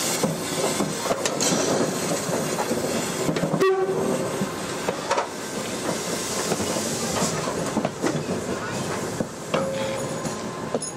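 A train rolling along the track, its wheels clattering and clicking over the rails. There is a brief break in the sound a little before four seconds in.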